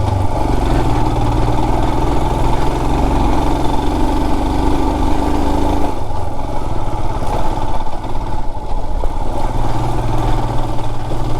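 Royal Enfield Himalayan motorcycle's single-cylinder engine running steadily while riding. Its note drops about six seconds in.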